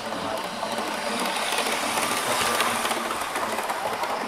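Model train running past on the layout: its small electric motor whining and the wheels clicking rapidly over the track, louder as it comes close and easing slightly near the end.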